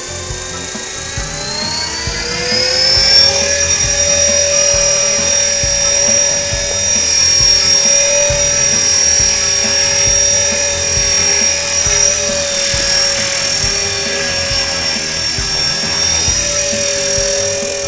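Blade 400 electric RC helicopter's motor and rotor spooling up, a whine that rises in pitch over the first three or four seconds, then holds a steady high whine at flying speed.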